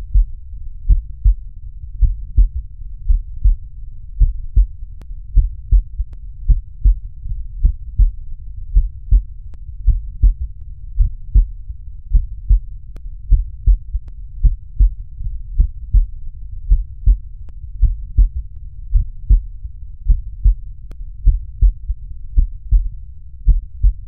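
Heart sounds picked up by an electronic stethoscope over the mitral area with the patient lying on his left side: steady lub-dub pairs, about one beat a second. A soft third heart sound follows the second sound, the usually physiological third sound of a young patient.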